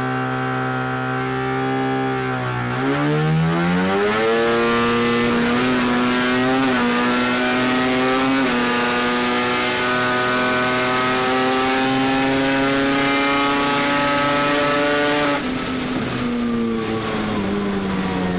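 Rotary engine of a Mazda RX-7 drag car, heard from inside the car during a quarter-mile pass. It holds steady revs, climbs sharply about three seconds in, and stays near full revs with two brief hitches for about eleven seconds. Then it backs off suddenly and winds down as the car slows.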